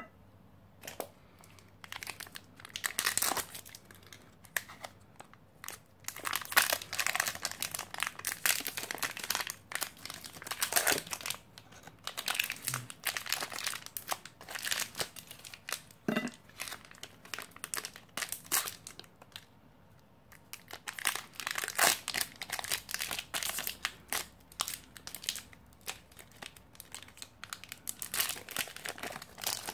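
A protein-bar wrapper crinkling and tearing as it is opened and peeled back, in several bursts of sharp crackles. Crisp puffed-grain bars crunch as they are broken apart by hand.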